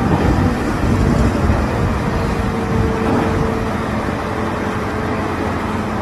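Wheel loader's diesel engine running with a heavy, steady rumble.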